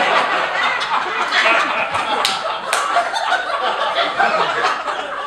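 Audience laughing at a punchline, with two sharp smacks a little past halfway through.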